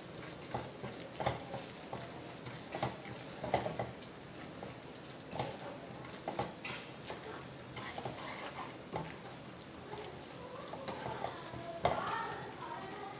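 A spatula scrapes and stirs a thick, grainy kalakand mixture of curdled milk, sugar and ghee in a nonstick kadai, while it sizzles as it cooks down. The scrapes come irregularly, about once or twice a second.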